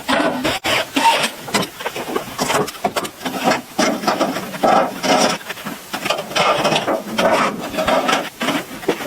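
Wood being worked with a hand tool: repeated rasping strokes, one after another, like a saw or blade scraping through timber.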